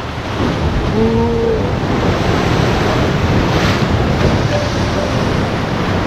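Sea waves breaking against rocks and washing back in foam, a steady loud roar of surf. Wind is buffeting the microphone.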